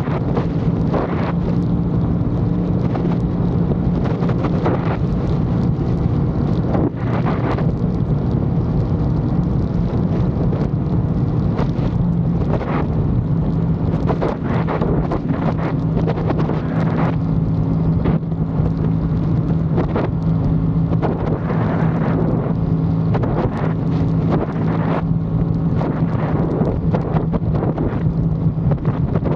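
Aprilia Tuono 660 Factory's parallel-twin engine running at a steady speed on the move, its note holding nearly constant pitch. Wind buffets the microphone in frequent gusts over it.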